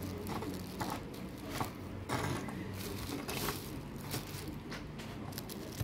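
Plastic bubble wrap crinkling and crackling in short, irregular clicks as hands and multimeter test leads move over it.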